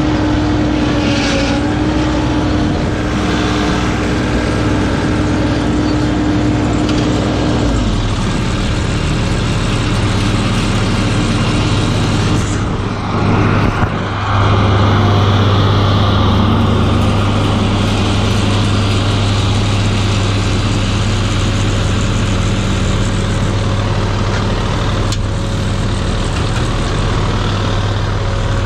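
Toro Groundsmaster 7210 ride-on mower's engine running steadily. A higher steady whine drops out about eight seconds in. After a brief dip about halfway through, the engine runs louder.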